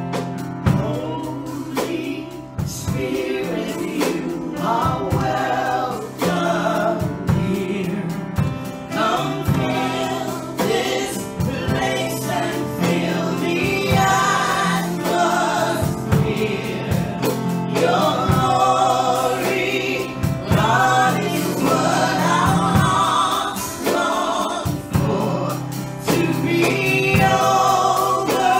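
Two women singing a gospel song together into handheld microphones, their voices over a steady low sustained accompaniment.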